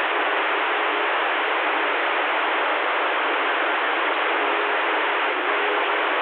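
Steady rush of static from a CB radio receiver between transmissions, with a faint low whistle now and then.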